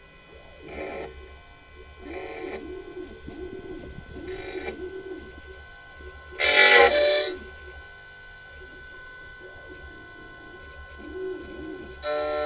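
Key-cutting machine trimming the last cut on the tip of a Vespa GTS key: short motor runs as the carriage moves, then a loud cutting burst of about a second, and a steady beep near the end.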